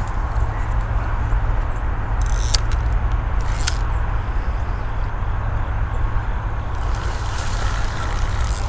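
Spinning reel being wound to take up line, with a few brief sharp clicks, over a steady low rumble.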